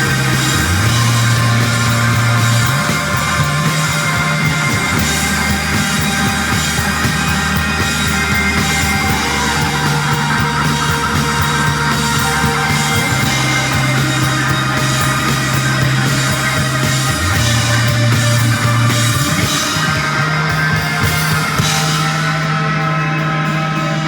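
Live rock band playing an instrumental: two guitars, bass guitar, drum kit and keyboard. Long held bass notes change every second or two under a dense wash of guitars and drums, and the brightest top end drops away near the end.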